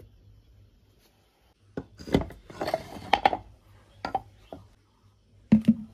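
A wooden rolling pin and a round wooden rolling board, along with a plastic food container, being set down and handled on a hard floor: a series of short wooden knocks and clatters with some scraping between them, starting about two seconds in.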